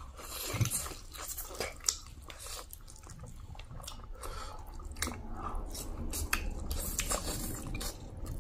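Close-up sounds of people eating spicy instant noodles: chewing and slurping, with many irregular wet mouth clicks.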